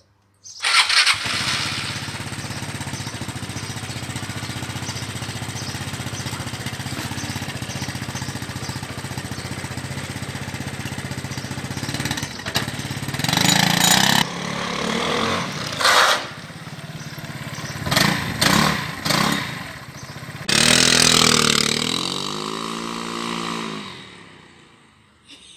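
Vespa GTS 300 single-cylinder four-stroke scooter engine starting up and idling steadily through a muffler with its catalyst cut out, made louder. It is then blipped several times, and near the end the scooter runs past, its note bending in pitch and fading away.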